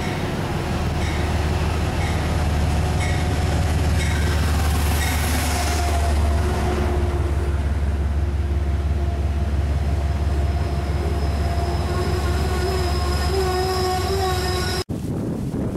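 Metro-North commuter train of Shoreliner coaches passing close by at a station platform: a loud, steady low drone with wheel noise, faint clicks about once a second at first, and a high wheel squeal joining in over the last few seconds. It cuts off suddenly near the end.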